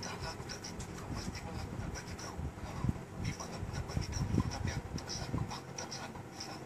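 Faint rubbing and scratching with scattered small clicks, the handling noise of a phone held by hand while it records.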